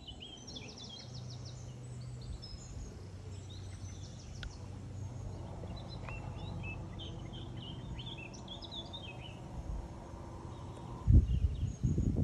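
Songbirds chirping and singing over a steady low hum. The hum cuts off about eleven seconds in, followed by a few loud low thumps on the microphone.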